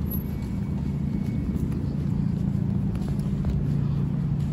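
A steady low mechanical hum, with faint footsteps on asphalt.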